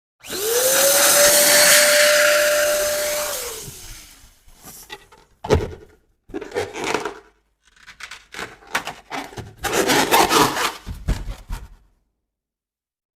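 Electric balloon pump running for about three seconds over a rush of air: its whine rises as the motor starts, holds steady, then falls away as it stops. After that comes rubbing and handling of the rubber balloon in short bursts, with one sharp tap about five seconds in.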